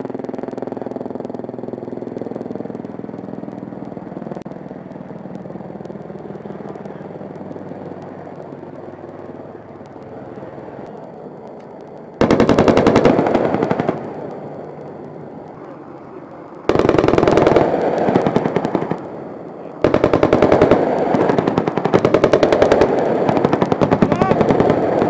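A helicopter's steady drone fades over the first twelve seconds. Then come three loud bursts of rapid machine-gun fire: a short one, a shorter one, and a last one that runs on for about five seconds.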